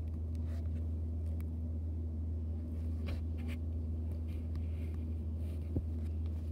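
Steady low electrical hum, with soft rustling and scratching as a foam squishy toy is handled against bedding, and a small click near the end.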